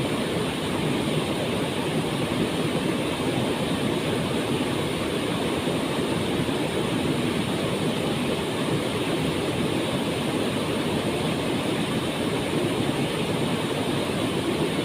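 Waterfall's steady rush of falling water, an even roar with no breaks.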